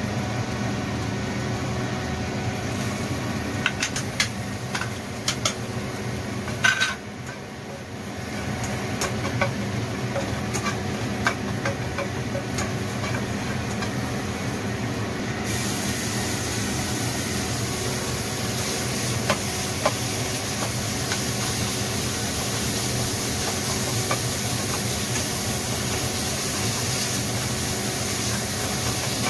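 Stir-frying in a frying pan on a gas stove: a few light clicks and taps as ingredients go into the pan, then about halfway through the sizzle of food in hot oil turns much louder and keeps going while it is stirred with a spatula. A steady machine hum runs underneath.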